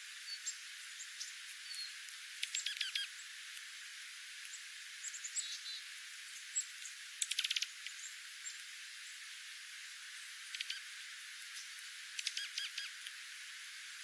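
Dark-eyed juncos calling at a seed patch: scattered short, high chips and three quick twittering runs of rapid notes, the loudest about halfway through. The calls sit over a steady faint hiss, with no low sounds at all because the recording is filtered below about 1 kHz.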